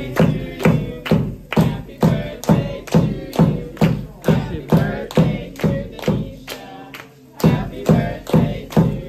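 Restaurant staff and diners singing a birthday song together, kept in time by steady hand claps about twice a second. The claps and singing break off briefly about seven seconds in, then start again.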